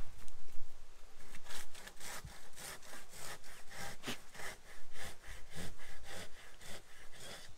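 Hand saw cutting wood: a Silky Japanese folding pull saw going back and forth through a tree or pole in quick strokes, about three a second, starting a little over a second in.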